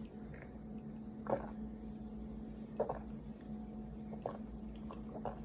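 A person gulping a drink, about four faint swallows spaced a second or so apart.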